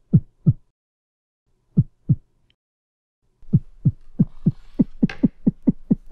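Heartbeat sound effect: slow lub-dub pairs of low thumps. About three and a half seconds in they quicken into a fast, even run of single beats over a low hum.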